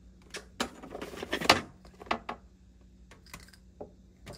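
Clicks and knocks of bottles and a plastic supplement tub being handled in a refrigerator door shelf, a quick run of them in the first second and a half, then a few scattered taps. A faint steady hum lies underneath.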